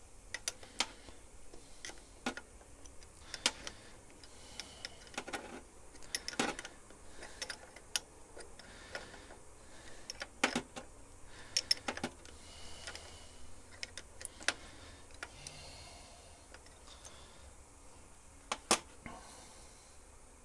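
Light metallic clicks and clinks of a hand wrench working a bolt on a lathe's cross-slide feed-screw bracket as it is tightened, about a dozen, spaced irregularly.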